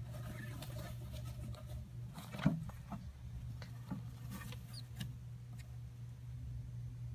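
Savannah monitor biting and chewing a mouse: scattered short clicks and crunches from its jaws, with one sharp, loud knock about two and a half seconds in, over a steady low hum.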